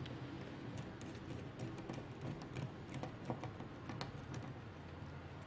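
Small screwdriver driving a machine screw into a nut on a hexapod robot's frame: faint, irregular light ticks and clicks, over a low steady hum.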